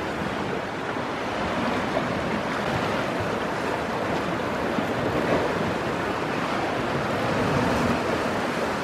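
Sea surf washing and churning against a rocky shore, a steady rush of water.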